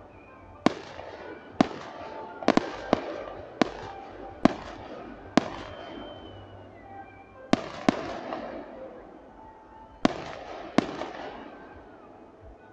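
Fireworks display: aerial shells bursting in about a dozen sharp bangs at irregular intervals, each followed by an echoing tail, with a short lull a little past the middle.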